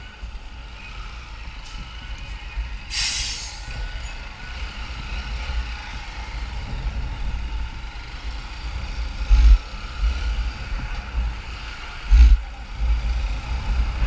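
Low rumble of a motorcycle ride through city traffic, engine and wind together. A short hiss comes about three seconds in, and two brief heavy thumps come later on.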